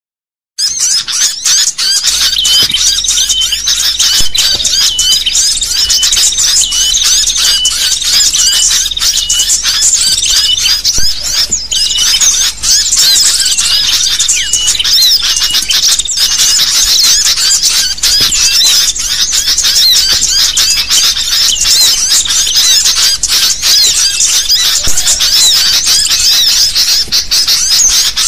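A dense, nonstop chorus of sooty-headed bulbuls chattering and whistling excitedly over one another, a noisy flock call used as a lure to trap bulbuls. It begins about half a second in and keeps going without a break.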